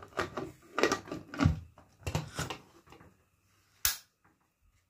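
Aluminium pressure cooker being moved and gripped by its handle: a run of short metal knocks and clatters, then one sharp click about four seconds in.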